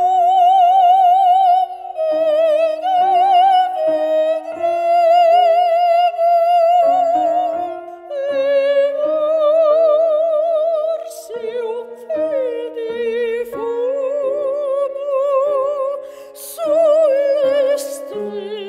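Background music: a high operatic voice singing a slow melody with wide vibrato, over a sustained instrumental accompaniment.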